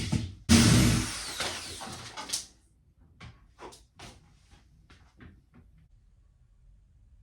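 Power drill running into a wall in bursts, its motor winding down about two and a half seconds in, followed by several light separate knocks and taps.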